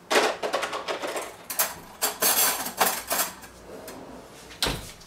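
Knife and fork clattering and clinking as they are handled, a quick run of clanks in the first three seconds and one more knock near the end.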